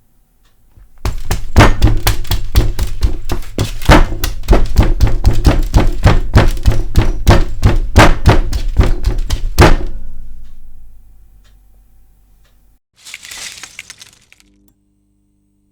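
An oversized novelty enter-key button being hammered repeatedly, about three to four dull thunking presses a second for nearly nine seconds, then stopping. A short rustle follows a few seconds later.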